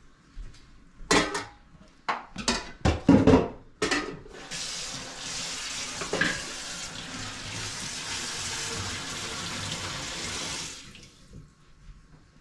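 A few loud knocks in the first four seconds, then a kitchen tap running for about six seconds before it is shut off suddenly.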